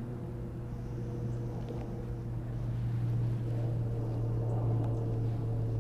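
A steady low mechanical hum with a few even overtones, growing slowly louder through the second half.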